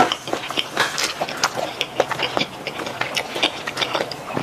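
Close-miked mouth sounds of chewing food: a dense run of short wet clicks and smacks, several a second.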